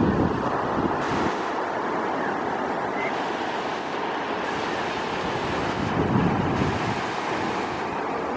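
Surf washing onto a sandy beach, with wind buffeting the microphone in gusts at the start and again about six seconds in.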